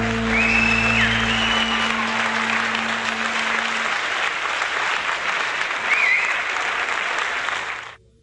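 Audience applauding at the end of a song, with a couple of short high whistles. The band's last note rings under the applause for the first few seconds. The applause cuts off abruptly just before the end.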